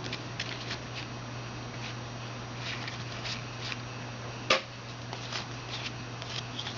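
Football trading cards being handled and flipped through, making light clicks and rustles, with one sharper snap about four and a half seconds in, over a steady low hum.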